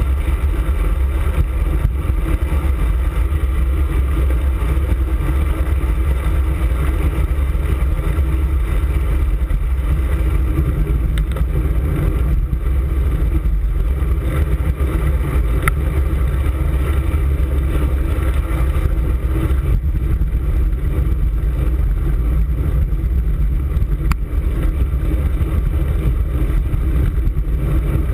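Steady wind buffeting and rumble on a handlebar-mounted camera's microphone while riding a road bicycle.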